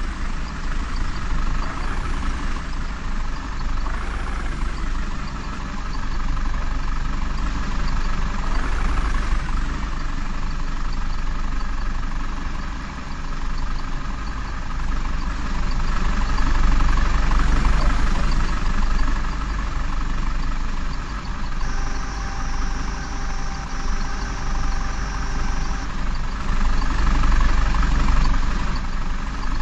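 Heavy diesel engine running, its level rising and easing as it works. Partway through, a steady high tone sounds twice for about two seconds each time.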